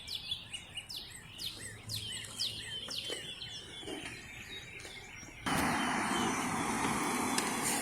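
Small birds chirping, a quick run of short downward-sweeping chirps. About five and a half seconds in, a steady rushing noise starts suddenly and drowns them out.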